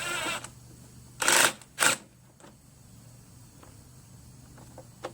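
Hand work on a machine part being fitted: a short rattle at the start, two loud clatters about a second and a half and two seconds in, then a few light clicks.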